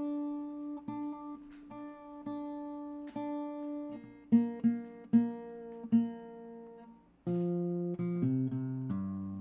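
Acoustic guitar playing the intro of a quasi-country song: single plucked notes ringing out about one a second, quicker notes about four seconds in, then fuller, lower notes let ring from about seven seconds.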